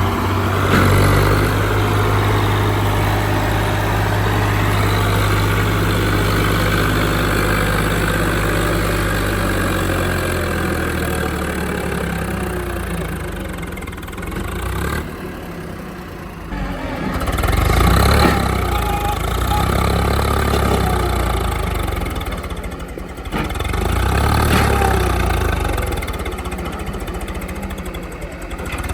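Diesel engine of a JCB backhoe loader running steadily, then revving up and dropping back twice in the second half.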